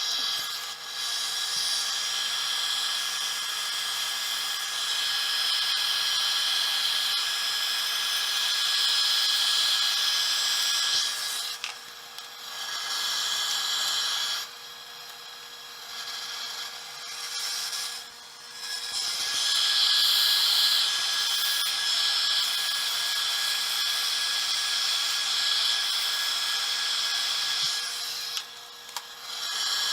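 A square cutter with a radius shear-cutting cedar on a running wood lathe: a steady hiss of cutting in several long passes broken by short pauses, over the lathe's steady motor hum.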